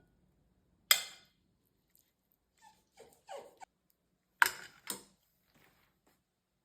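Three sharp knocks: one about a second in and two close together about four and a half seconds in, with a few short, faint sounds between them.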